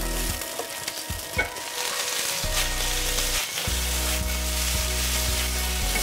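Cauliflower gnocchi sizzling in hot oil in a frying pan as they brown and crisp, turned over with metal tongs, with one sharp click of the tongs about a second and a half in, then tossed with a shake of the pan.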